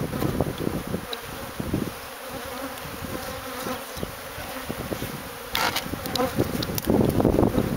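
Many honey bees buzzing around a colony disturbed during a cutout from its combs, with low rumbles of handling or wind on the microphone that grow louder near the end.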